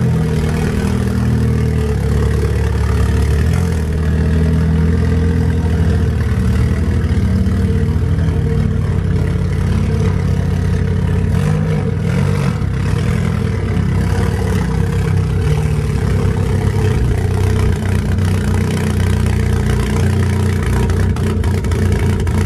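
Modified VW Jetta Mk4's engine idling steadily while the car creeps along. It is running rich and needs a tune, with an idle that almost sounds cammed.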